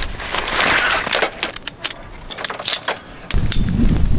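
Light metal clicks and clinks of a folding camping hanger rack's legs, bar and hooks being handled and fitted together, with its fabric storage bag rustling about the first second. Low wind rumble on the microphone near the end.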